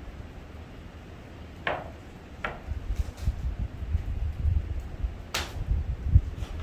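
A few short, sharp knocks and crunches over a low, uneven rumble: a serving dish set down on a wooden table and people biting into toasted bread. There are two knocks about two seconds in and a sharper crunch or click near the end.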